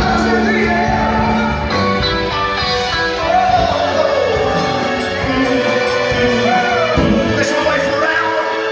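Live dance band playing a song with a singer, loud and steady, heard across a large reverberant ballroom.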